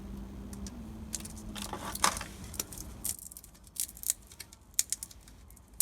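Hands handling an opened lithium-polymer battery pack and small tools: scattered clicks, taps and light rattles, with one louder knock about two seconds in. A low background hum cuts off about three seconds in.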